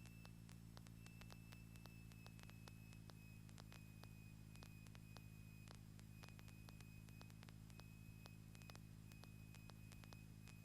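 Near silence: a faint steady low hum with hiss and scattered faint clicks.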